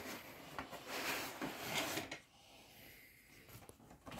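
Soft rubbing and a few light knocks as an all-in-one liquid cooler's tubing and pump block are drawn out of a foam packing insert in a cardboard box, for about two seconds.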